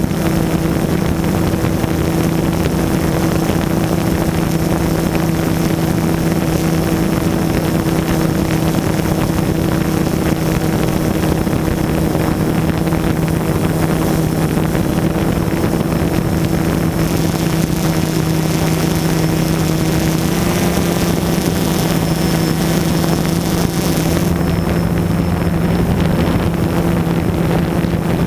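DJI Phantom quadcopter's motors and propellers running with a steady hum, heard up close from the GoPro mounted on the drone. For several seconds past the middle a hiss over the hum grows louder.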